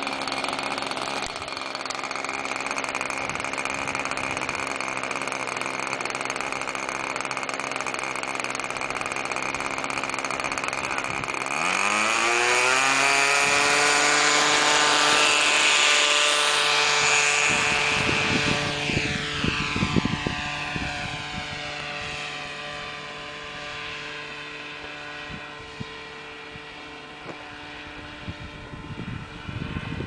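Radio-controlled model airplane's small engine running steadily as it taxis, then throttling up about a third of the way in, its pitch climbing and growing louder for takeoff. Afterwards the pitch falls and the sound fades as the plane flies away.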